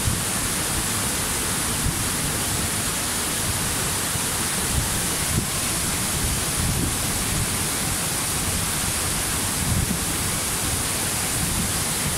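Waterfall, water falling and rushing steadily, with an uneven deeper rumble underneath.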